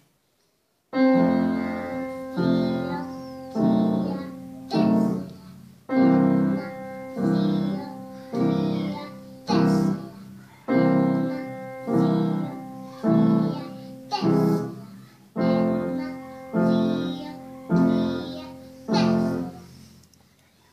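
An upright acoustic piano played by a child and an adult together, with evenly spaced chords and notes in a steady, waltz-like pulse. The playing begins about a second in, pauses briefly about two-thirds of the way through, and dies away shortly before the end.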